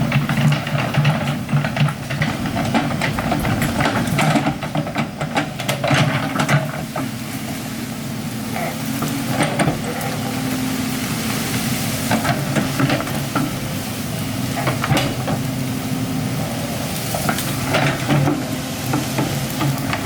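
Excavator's diesel engine running steadily, with frequent crackling and clattering on top as it works the ground.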